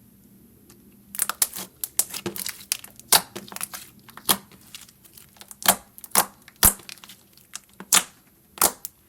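Slime being squished and pressed by hand, giving a run of irregular sharp pops and crackles that start about a second in.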